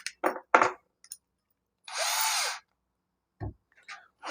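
A Bosch 12-volt cordless drill triggered briefly, spinning free for about half a second with its pitch rising and then falling. A few small clicks from the drill being handled come before it, and a single dull knock comes near the end.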